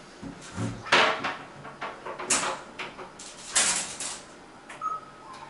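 A few short noisy sounds of household things being handled, such as a cupboard or door opening and closing. The loudest comes about a second in, with several more spaced about a second apart.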